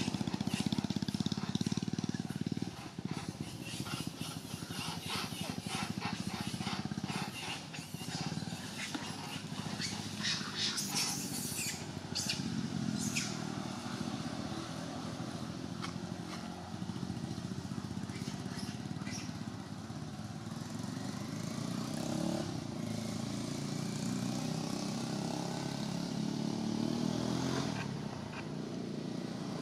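A motor engine running steadily as a low rumble, with a run of sharp clicks and crackles in the first half.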